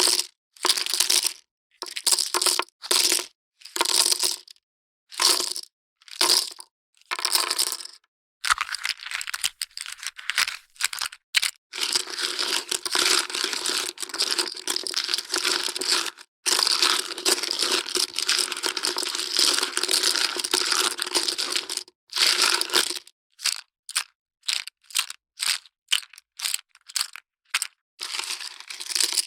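Poker chips clattering and clicking against each other: first a series of short separate handfuls with pauses between, then two long unbroken runs of dense clattering, then short bursts again near the end.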